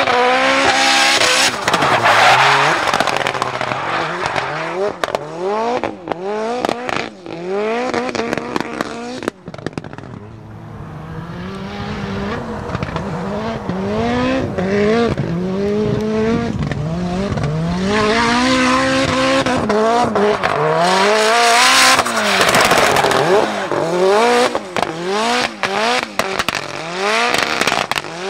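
Nissan 200SX S13 drift car with a turbocharged stroker CA20DET four-cylinder, revving up and down over and over as it drifts, with tyres squealing. The squeal is heaviest near the start and again about two-thirds of the way in, and there is a quieter stretch around a third of the way through.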